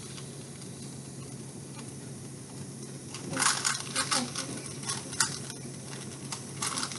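Rubik's cube layers being twisted quickly by hand, plastic clicking and rattling in quick bursts starting about three seconds in, over a low steady hum.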